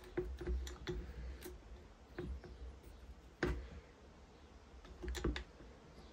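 Light metallic ticking and clicking from a T27 Torx driver turning the tank's mounting screw into a Stihl 026 chainsaw. A quick run of small ticks comes first, then a few separate, sharper clicks.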